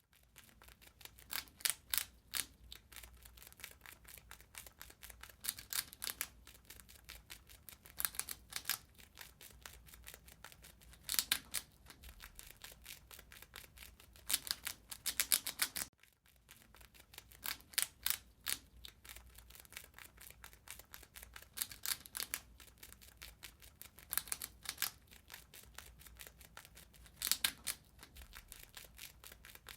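A rat gnawing and chewing food: rapid, dry crunching clicks in clusters that swell every few seconds, with a short break about halfway through.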